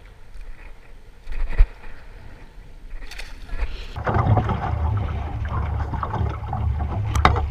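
Water slapping and sloshing against a small boat's hull with wind buffeting the microphone, growing much louder about four seconds in. A few sharp splashes and knocks come near the end as a fish is hauled out of the water over the side.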